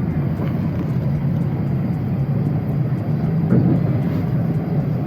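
Steady low rumble of a running vehicle, with no separate events standing out.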